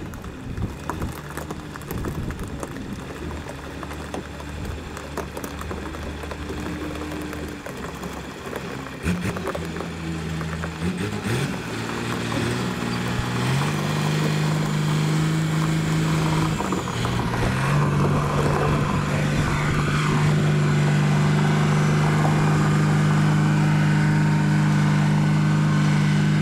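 Heavy diesel engine of the rock-drilling rig running, revving up in several gliding steps in the second half and then holding at a higher, louder speed.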